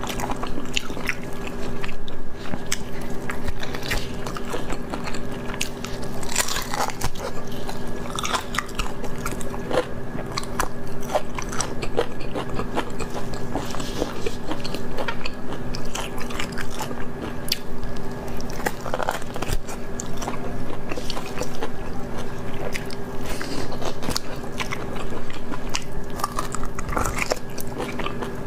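Close-up eating sounds: biting into and chewing glazed braised meat, with many short wet smacks and crunches. A steady low hum sits beneath.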